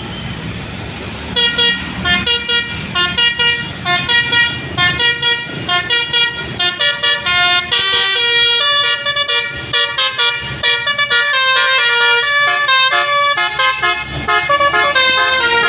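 Bus basuri (telolet) musical air horn playing a fast melody, starting about a second in. It begins with short choppy notes and moves to longer held notes, over a low bus engine and traffic rumble.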